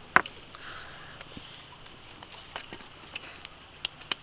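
Wood fire crackling under a spit-roasted duck, with scattered sharp pops: one loud pop just after the start and several smaller ones near the end.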